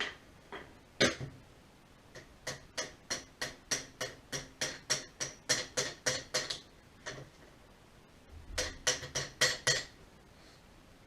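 Hammer tapping on metal parts of a tractor driveshaft: two single blows, then a steady run of light, ringing taps about three a second, a pause, and another quick run of taps near the end.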